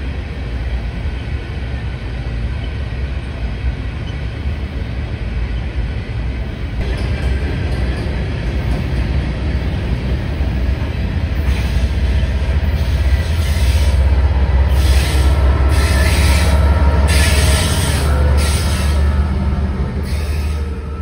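Freight train of covered hopper cars rolling past at speed: a steady low rumble of steel wheels on rail that grows louder about halfway through. Through the second half, bursts of high-pitched wheel hiss come and go about once a second, easing near the end as the last cars go by.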